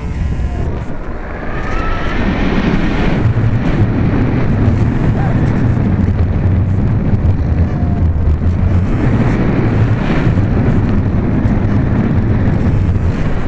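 Steady drone of a model aircraft's motor and propeller heard from on board, with wind rushing over the microphone; it drops back briefly about a second in, then runs on evenly.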